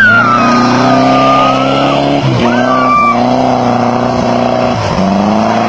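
Volkswagen Beetle's air-cooled flat-four engine revving hard as the car ploughs through mud. The revs dip briefly twice and climb back.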